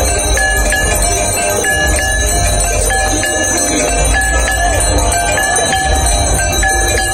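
Hand-rung temple bells clanging continuously in the evening aarti, with a steady low rumble beneath.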